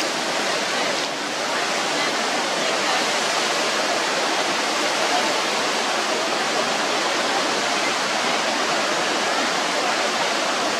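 A river in flood: fast, churning floodwater rushing steadily.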